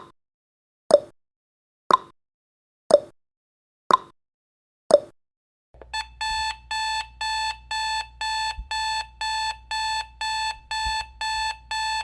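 Countdown timer sound effect: clock ticks once a second, alternating high and low like a tick-tock, then about six seconds in the timer hits zero and an electronic alarm starts beeping rapidly, about two beeps a second.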